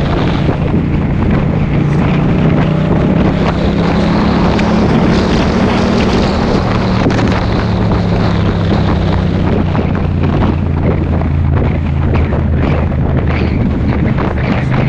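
Motorcycle engine running on the road under heavy wind rush on the microphone. The engine note shifts lower about halfway through.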